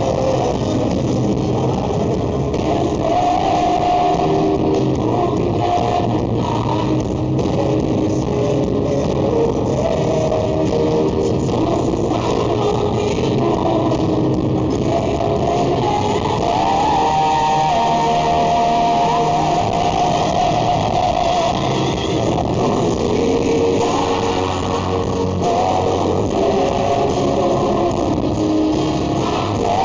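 Live rock band playing, with electric guitar, bass and drums, a steady full-band passage without clear singing.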